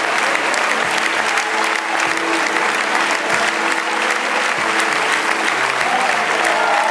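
Large crowd applauding steadily, with music playing underneath, its low beat thumping about once every second and a quarter.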